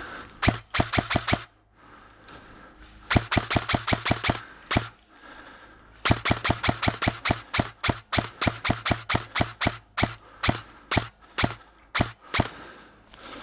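Airsoft rifle firing strings of rapid single shots, a sharp crack each time. There is a short string, then a longer one, then a long run of shots at about four a second that spaces out towards the end.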